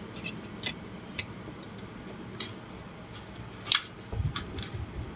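Scattered small clicks and taps of hand tools and parts being handled during bench work on a portable speaker. The loudest click comes a little before four seconds in, followed by a few soft low thuds.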